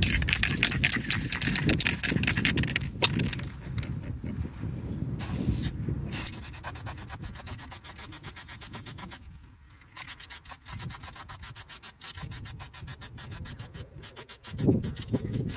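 Aerosol spray-paint can hissing in bursts as paint is sprayed onto a steel target plate. The hiss is loudest in the first few seconds, with a short burst about five seconds in, then softer. A steady low rumble runs underneath.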